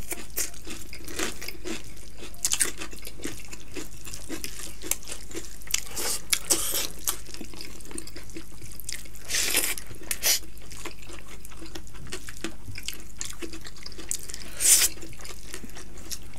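Close-miked eating by hand: fingers squeezing and mixing rice soaked with dal, and wet chewing and smacking sounds. It comes as a steady run of small wet clicks and smacks, with a few louder ones.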